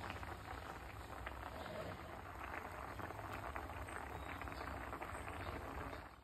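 Thick butter chicken gravy bubbling in a pan as it simmers and thickens: a steady run of small pops and spits, over a low steady hum.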